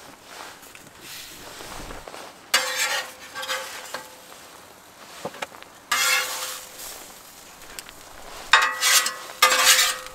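Metal spatula scraping across the steel plate of a flat-top griddle in four strokes, sliding under the warmed burritos and clearing the surface. Each scrape has a ringing metallic tone, and there is faint sizzling between strokes.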